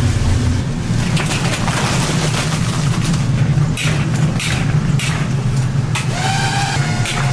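Frying-station kitchen noise: a steady low roar under the hiss of frying, with scattered metal clatters from the strainer and spatula. A short high-pitched whine comes about six seconds in.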